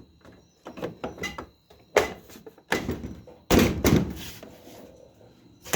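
Dryer parts being handled and snapped into their grooves on a Kenmore dryer cabinet: a series of knocks and clicks, the loudest a heavier thunk about three and a half seconds in.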